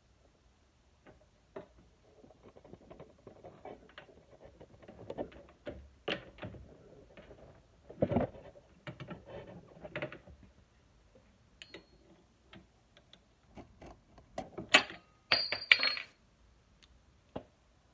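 Metal hand tools and engine parts clicking, scraping and clinking while a mini chopper's small gas engine is taken apart by hand. A quick run of sharp, ringing metal clinks comes near the end.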